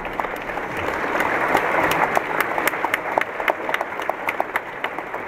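Audience applauding: many hands clapping together, easing off slightly near the end.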